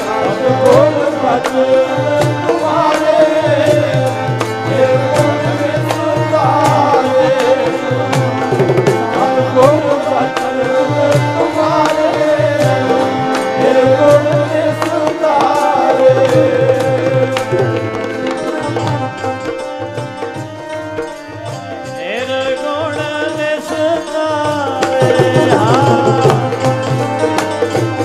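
Sikh devotional kirtan music: hand-drum strokes keep a steady rhythm under a wavering sung melody.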